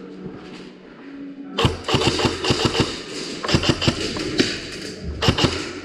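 Airsoft guns firing during an indoor close-quarters game: quiet at first, then from about a second and a half in, clusters of sharp clicks and knocks come thick and irregular, in several bursts.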